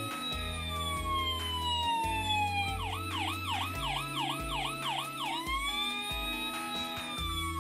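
Electronic toy siren from a Playmobil fire engine's light-and-sound unit: a wail rising and falling slowly. About three seconds in it switches for nearly three seconds to a fast yelp of two to three sweeps a second, then goes back to the slow wail.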